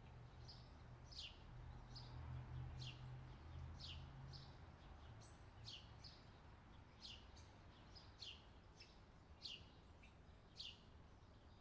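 Faint outdoor ambience of a small bird chirping: a quick downward-sliding note repeated about once a second, with softer, higher short notes in between, over a low background rumble.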